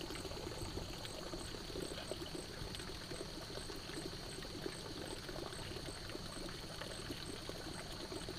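Water trickling and gurgling in a flooded rice paddy at night, steady and fairly quiet, with a faint high chirp repeating about twice a second over it.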